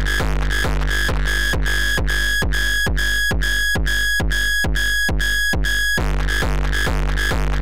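A looped 909 kick drum distorted by FabFilter Volcano 3 into a hardstyle kick, hitting steadily a little over twice a second. About two seconds in the plugin's input gain is turned down from +36 dB, so the kick sounds cleaner with a ringing tone, and about six seconds in it is turned back up and the distortion thickens again.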